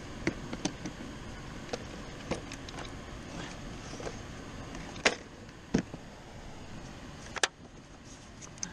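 Plastic tackle box being handled: a series of sharp clicks and knocks as the box is opened and a bait cup is taken out, the loudest about five seconds in and again about two and a half seconds later, over a steady background hiss.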